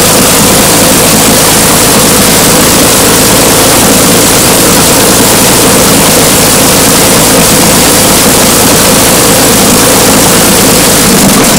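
Rolls-Royce Merlin supercharged V12 aero engine running steadily and loud through its open exhaust stubs.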